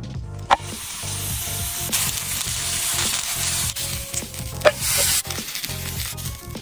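A raw bone-in mutton leg sizzling on a hot black iron plate over wood embers, a steady hiss that swells about two seconds in. Two sharp knocks come through it, one just after the start and one near the end.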